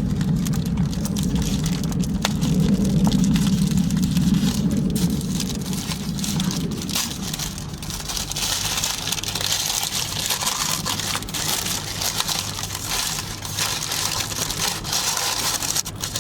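Close-miked chewing and smacking of food, with many wet clicks and crunches throughout.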